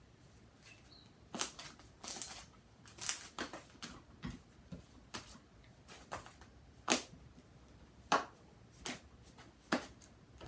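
Irregular short clicks, taps and brief rustles of small objects being handled, about a dozen spread unevenly, with the sharpest ones a little before and a little after the middle.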